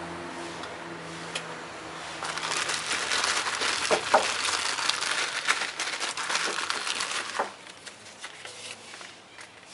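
Paper wrapping crinkling as new hydraulic valve lifters are unwrapped by hand: a dense rustle that starts about two seconds in and stops about seven and a half seconds in.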